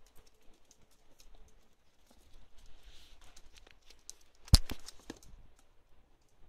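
Chocolate Labrador puppies' claws pattering and clicking on concrete paving slabs, with one loud sharp knock about four and a half seconds in.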